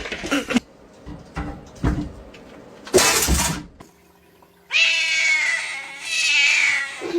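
Domestic cat meowing: a long, wavering, drawn-out meow of about two seconds near the end. A short, loud noisy burst comes about three seconds in.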